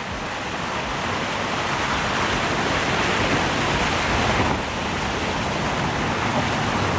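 Water rushing steadily down a concrete canal spillway, an even hiss and rumble of falling, churning water.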